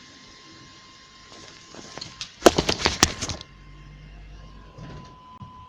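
A faint steady hiss with a thin steady tone, then about halfway a quick run of sharp clicks and knocks lasting about a second, after which a low steady hum sets in.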